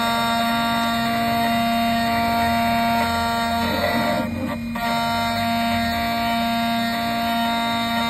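Key-cutting machine's spindle motor whining steadily as its cutter mills the brass blade of a Fiat Ducato remote key. The whine cuts out briefly about four and a half seconds in, then resumes.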